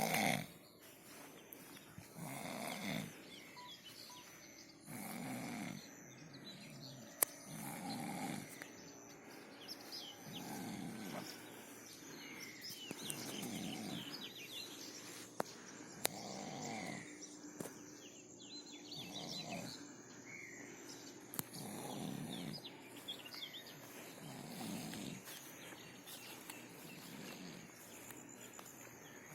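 A sleeper snoring steadily in deep sleep, one low snore on each breath about every two and a half to three seconds, about ten in all, the first the loudest.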